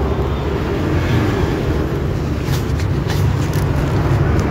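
Steady low rumble of road traffic passing close by, with a few light clicks of hands handling food and dishes.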